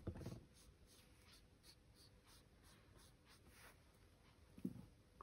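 Faint strokes of a paintbrush rubbing on wet card, a quick run of soft scratchy brushes about three a second. Two soft low thumps, one right at the start and one about four and a half seconds in.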